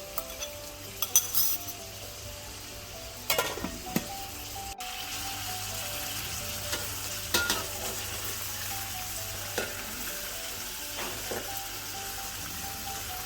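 Food sizzling as it fries in a pan, a steady hiss broken by a few sharp utensil clicks and scrapes, with quiet background music underneath.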